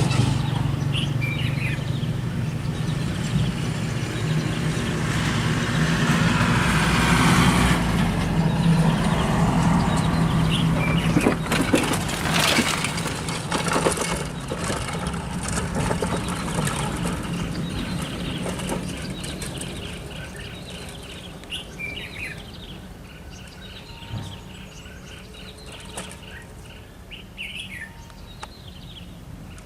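Small birds chirping and calling repeatedly over a low steady hum, which fades away about two-thirds of the way through.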